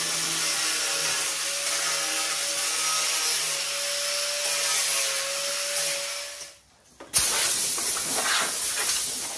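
Air-powered disc sander running steadily with a whining tone and hiss as it smooths the freshly cut edge of the lawn tractor hood. It stops about six and a half seconds in, and after a brief pause a compressed-air blow gun comes on with a sharp start and a steady rushing hiss.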